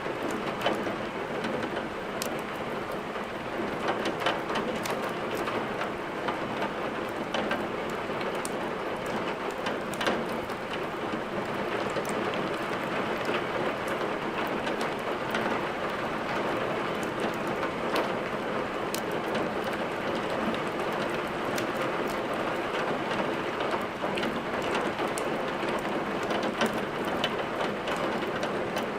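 Steady rain falling on a surface, with scattered sharp ticks and pops throughout that fit a crackling wood fire in a fireplace.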